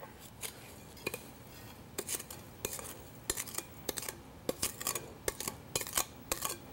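A spoon scraping and knocking inside a glass mixing bowl as buttered graham cracker crumbs are tipped out into a baking pan. A few light clicks at first, then from about two seconds in a quick, irregular run of scrapes and clinks, several a second.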